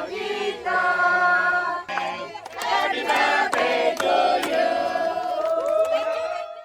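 A crowd of people chanting in unison with held notes, with a few sharp claps through it; the voices end on one long held note.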